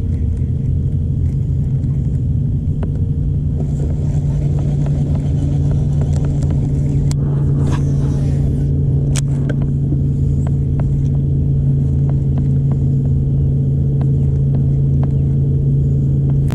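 Bow-mounted electric trolling motor running with a steady hum. A brief swish about eight seconds in comes as a cast is made, followed by scattered light clicks.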